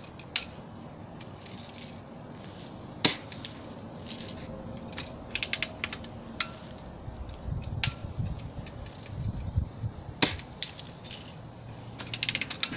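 BB gun being shot: sharp cracks spaced several seconds apart, the two loudest about three seconds in and about ten seconds in. There is a quick run of small clicks near the end and bursts of low rumble on the microphone.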